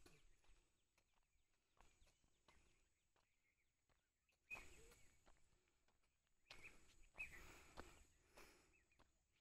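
Near silence, with a few faint footstep scuffs on a dirt track, about four and a half seconds in and again around seven to eight seconds in.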